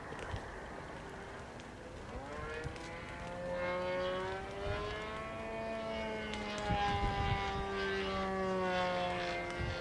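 Radio-controlled model airplane's motor and propeller droning in flight. The whine comes up and rises in pitch about two seconds in, then holds and wavers gently as the plane flies by.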